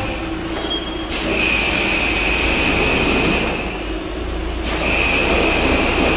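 Compressed-air blow gun hissing in two long bursts of about two and a half seconds each, with a steady whistle running through each burst, starting about a second in and again near the end. A steady low hum runs underneath.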